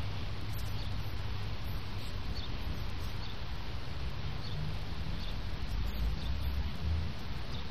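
Wind rumbling on the microphone outdoors, swelling a little near the end, with small birds chirping faintly now and then.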